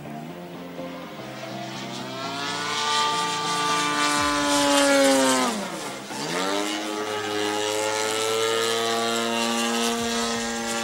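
DLE 60cc twin-cylinder petrol engine of a large RC Extra 330, swinging a 23x8 propeller in flight. The engine note climbs and gets louder, drops sharply in pitch about six seconds in, then comes back up and holds steady.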